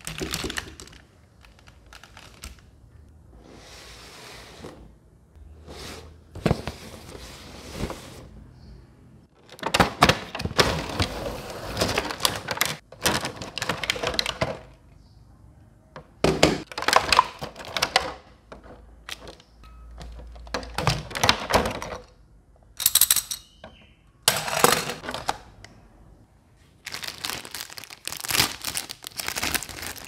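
Clear plastic packaging crinkling and rustling in irregular bursts as it is handled, with thunks of hard plastic toy parts knocking together.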